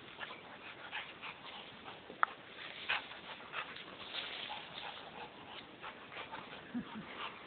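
Rottweiler playing in tree branches: twigs and leaves crackling and rustling in short irregular bursts, with one brief high whine about two seconds in.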